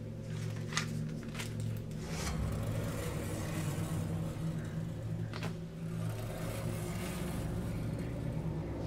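Paper pages of a spiral-bound notebook flipped by hand, a few short rustles over a steady low hum.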